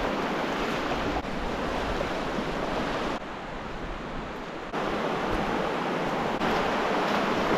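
Fast, shallow water of the Virgin River rushing over rocks in a steady wash of noise, its level jumping abruptly up or down a few times.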